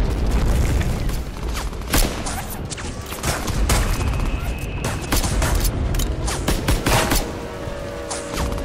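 Battle sound effects: a heavy low rumble of explosions with repeated gunfire cracks and booms throughout. A steady humming tone comes in near the end.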